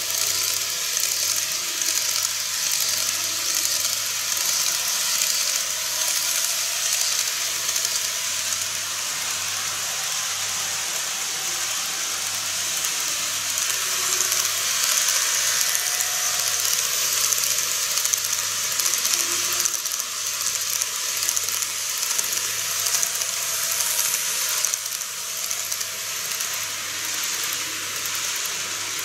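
N-gauge model trains running on the layout's track: the small motors and wheels make a steady, high hissing whir.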